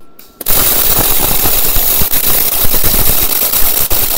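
MIG welding arc from a Weldinger MEW 201 SYN ECO inverter welder running solid wire with shielding gas, striking about half a second in and then crackling steadily as the bead is laid.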